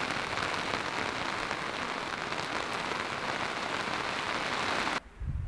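Steady rain falling on a camping tarp overhead and the ground around it. It cuts off suddenly about five seconds in, leaving a low rumble.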